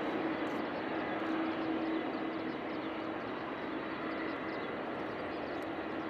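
Jet engines of a landing Boeing 767-300F freighter: a steady rushing noise with a faint low hum running through it, easing slightly in level.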